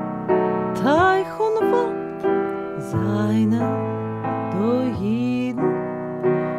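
Music: sustained chords with a melody whose notes slide up in pitch several times.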